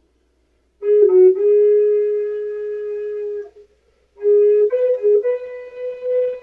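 Background flute music, a slow solo melody. It begins a little under a second in with a long held note and a quick ornament at its start, pauses briefly, then plays a few shorter notes that step up in pitch.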